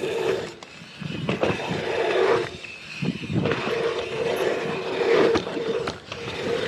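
Dirt jump bike riding over packed-dirt jumps and through a berm: tyres rolling and scraping on the dry dirt, in rushes that swell and fade with each jump, mixed with wind rushing past the mounted camera.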